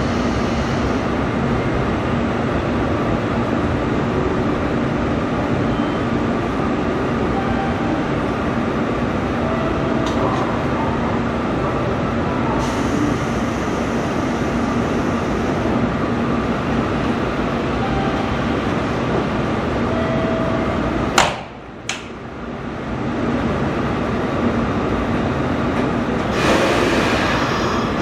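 JR Kyushu 787 series electric train standing at the platform, its on-board equipment giving a steady hum with a thin constant tone. About three quarters of the way through there is one sharp clack, then the hum dips briefly. A hiss rises near the end.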